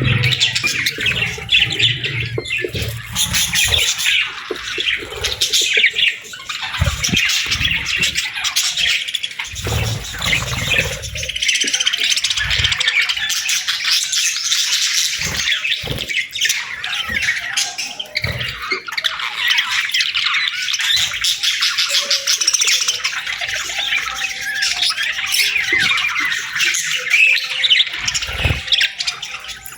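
A flock of budgerigars chattering continuously, with rapid overlapping chirps, warbles and occasional squawks. A few brief low thumps come through here and there.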